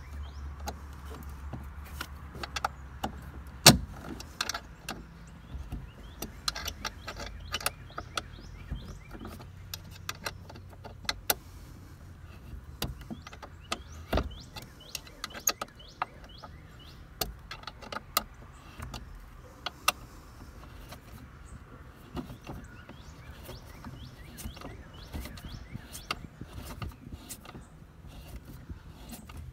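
Irregular clicks and taps of an Allen wrench and a plastic grab handle being worked by hand as long bolts are turned in to fasten the handle to a Jeep Wrangler JK roll bar, with a sharper knock about four seconds in and another around fourteen seconds. A low hum sits underneath for the first few seconds.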